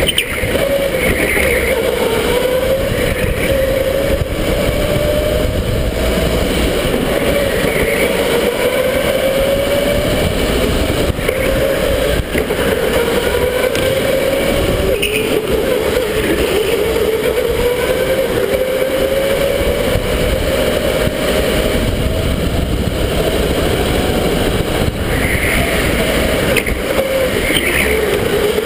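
Electric go-kart motor whining, its pitch climbing slowly as the kart speeds up and dropping back before climbing again, several times over, above a steady rushing noise.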